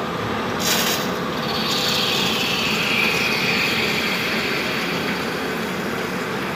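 HMT Stallion 100 SU CNC lathe turning a workpiece during an automatic cycle: steady cutting and spindle noise. A brief hiss comes about a second in, and a cutting whine falls in pitch around two to three seconds in.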